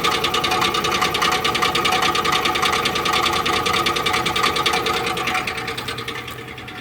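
2005 Chevrolet Tahoe Z71's V8 engine running with a fast, even ticking clatter, louder from underneath the vehicle. The owner wonders whether it is a bad connecting rod, though the engine isn't shaking and the oil shows no metal shavings. The clatter eases off a little near the end.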